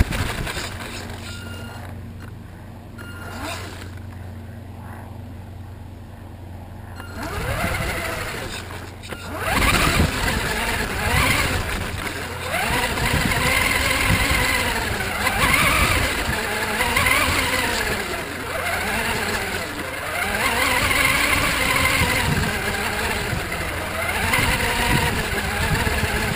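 FTX Enrage 1/10 RC buggy's motor and drivetrain whining, rising and falling in pitch again and again as it is driven over grass, heard from a camera mounted on the car. A quieter steady hum comes first, and the driving starts about eight to ten seconds in.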